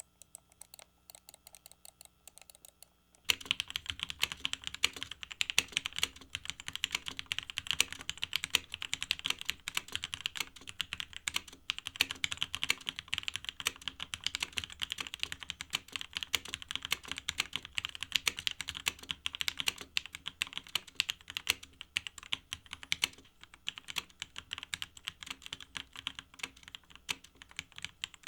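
Typing on a Munfrost Deimos mechanical keyboard with linear Gateron Red switches: a few light keystrokes at first, then a dense, rapid clatter of keystrokes from about three seconds in.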